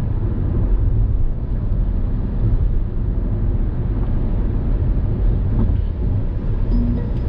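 Car driving along the road, heard from inside the cabin: a steady low rumble of engine and tyre noise.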